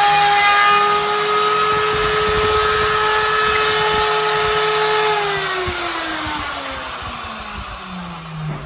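Homemade CNC router's spindle motor whining steadily while its bit engraves an MDF board. About five seconds in, the whine falls steadily in pitch and fades as the spindle slows down, with a short knock near the end.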